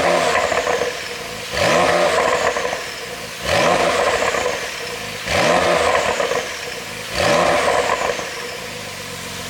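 Porsche 911 Carrera 4S twin-turbo flat-six free-revving in short blips, about five, each followed by a burst of popping and crackling from the exhaust on the overrun. The pops come from an ECU tune made to produce them.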